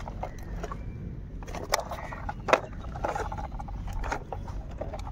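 Hollow plastic toy vehicles knocking and scraping together as a toy car is set onto a plastic toy truck's bed, with two sharp clacks about a third and halfway through.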